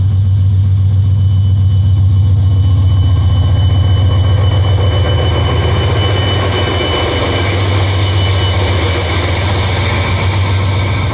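Wabtec diesel-electric freight locomotive running under load, a heavy steady engine drone. A thin high whine sounds for several seconds in the middle, and a hiss builds in the second half.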